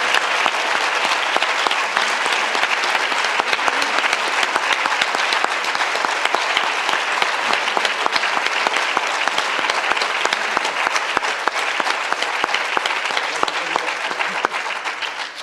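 A large audience applauding steadily, the clapping dying away near the end.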